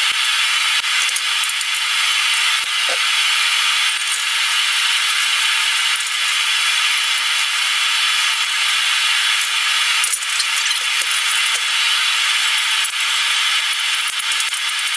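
Wrench and steel parts of a hydraulic shop press clinking and rattling as the press is unbolted and taken apart, a dense run of small metallic clicks over a steady hiss.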